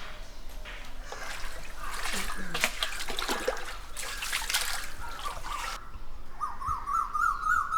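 Water splashing and trickling, with a rapid, repeated squeaking over the last couple of seconds.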